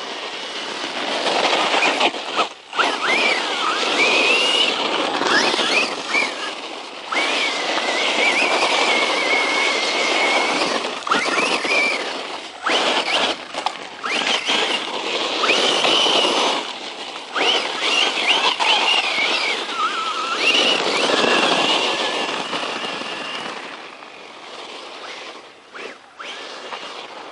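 Circuit Thrash 1/10 scale RC truck driven hard: its brushless motor whines up and down in pitch over a loud rush of tyre and drivetrain noise, with a few short drops as the throttle is let off.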